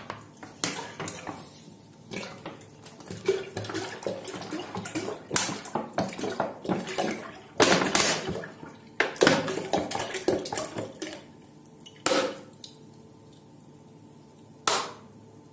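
Milk poured from a plastic bottle into a stainless steel pot, splashing and glugging in uneven spurts. After about eleven seconds the pour thins to a trickle, with two short louder splashes near the end.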